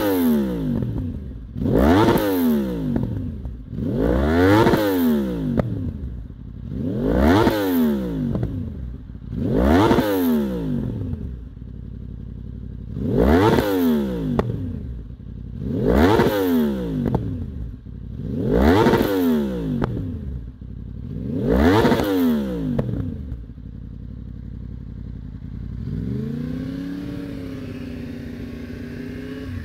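Yamaha R1's crossplane inline-four engine free-revving through Akrapovic carbon mufflers: nine quick blips of the throttle, each rising sharply in pitch and falling straight back, about every two and a half seconds. After the last blip it settles to idle, the idle wavering slightly in pitch near the end.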